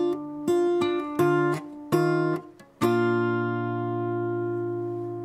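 Acoustic guitar strumming chords in an even rhythm. About three seconds in, a last chord is struck and left to ring out, slowly fading: the closing chord of the song.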